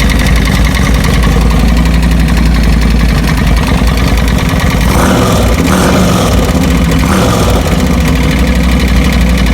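Engine running with a rapid, steady ticking from the valve train, typical of a failing lifter. The pitch shifts briefly a few times about halfway through.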